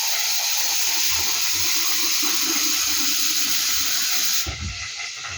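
Water running steadily from a kitchen tap into a vessel being filled. About four and a half seconds in, the flow drops off with a low knock.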